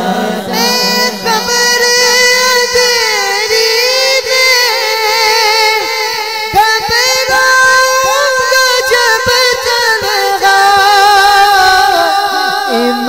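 A man singing a Punjabi naat in a high, drawn-out melismatic line, the voice gliding and wavering through long held notes without clear words. It starts about half a second in.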